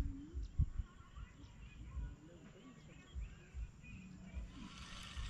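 Open-air ambience: wind buffeting the microphone with uneven low rumbles, and faint bird chirps in the background. A steadier high hiss comes in near the end.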